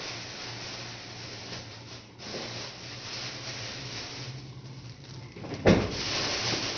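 Steady hissing noise with a low hum underneath, cut briefly twice, and a single sharp knock near the end.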